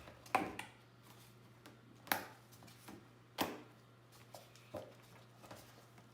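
Handling of a thin laser-cut plastic face shield being fitted onto a 3D-printed PETG headband: four sharp plastic clicks, a second or so apart, with light rustling between them.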